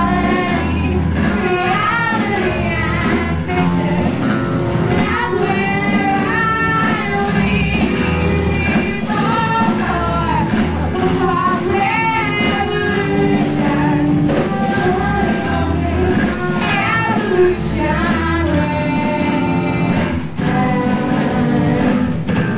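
Folk punk rock song: a vocalist singing over a full band, with steady bass notes underneath.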